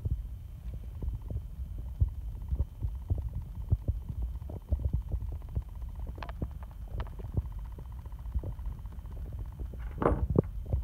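Low rumbling handling noise from a hand-held phone's microphone, with irregular soft knocks and a few light clicks as fingers turn small metal differential parts close to it. A louder burst of noise comes near the end.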